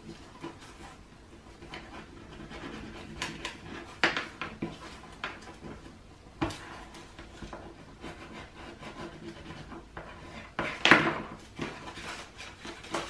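Paper being folded and creased by hand on a tabletop: scattered rustles and crinkles, with a louder, longer rustle about eleven seconds in.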